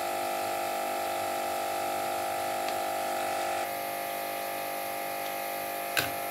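Steady electrical buzzing hum, like a small motor running. It shifts slightly in pitch and drops a little in level about three and a half seconds in, and a short knock comes near the end.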